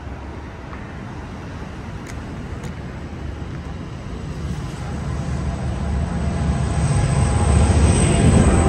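A train approaching: a low rumble that grows steadily louder and is loudest near the end.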